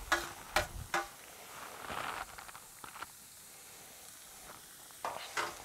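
Marinated pork tenderloin sizzling on a hot barbecue grill grate, with a few sharp clicks of metal tongs in the first second and again near the end.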